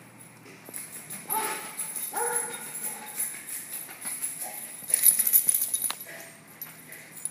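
Small dogs giving a couple of short, high barks, then a loud burst of metallic jingling and rattling about five seconds in.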